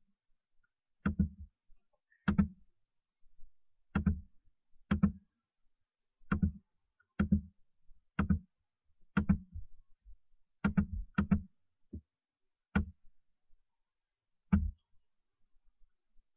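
Computer mouse clicking, a series of short sharp clicks with a low thud, roughly one a second at uneven spacing.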